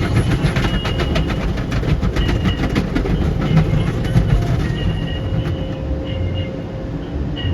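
Automatic car wash running: a rapid clatter over a steady low rumble, densest about one to four seconds in.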